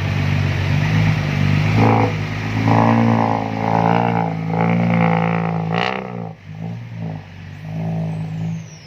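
Diesel truck engine running steadily, revved up from about two to six seconds in, with a short hiss just after the revving peaks.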